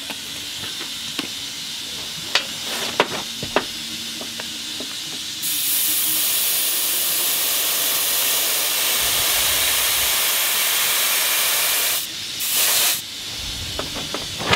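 Compressed air hissing from an air blow gun pressurising a welded pipe for a soapy-water leak test. A fainter hiss with a few light clicks comes first, then a loud steady blast of air for about six seconds, then a short second blast.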